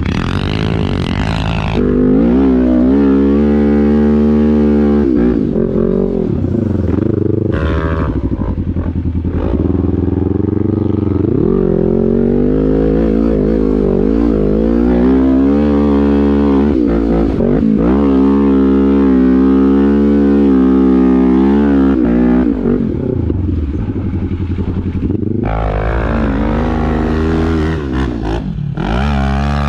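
Quad bike engine revving hard under load on a sand hill climb, its pitch rising and falling repeatedly as the throttle is worked, dipping briefly several times.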